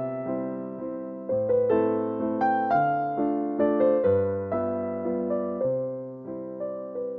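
Background piano music: single notes of a melody struck one after another and fading, over deeper sustained bass notes.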